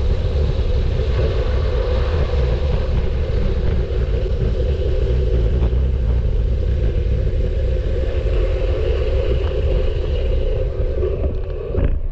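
Steady wind rush and road rumble of a bicycle moving at speed, heavy in the low end. It cuts off abruptly near the end.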